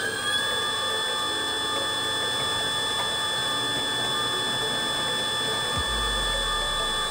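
Kawata Super Mixer 'Piccolo' running empty at a steady speed, its motor and spinning agitator shaft giving a steady mechanical whine of several held tones.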